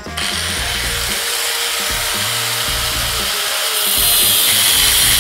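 Angle grinder with an abrasive cut-off disc starting up and cutting through a metal bracket clamped in a vise, a steady high grinding that grows louder about four seconds in as the disc bites deeper.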